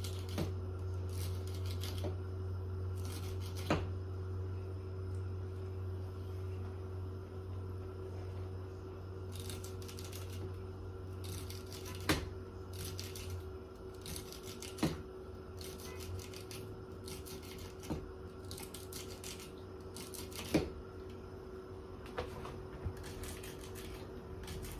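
Knife slicing through celery stalks on a cutting board: crisp cuts and irregular sharp knocks of the blade against the board. A steady low hum runs underneath and stops about halfway through.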